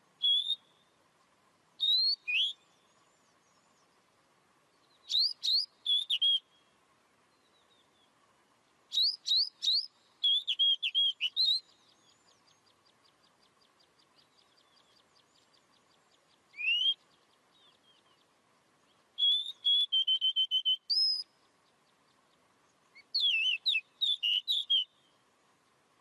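Bird song: short phrases of clear whistled notes sliding up and down, repeated every few seconds with pauses between, and a faint rapid trill in the middle.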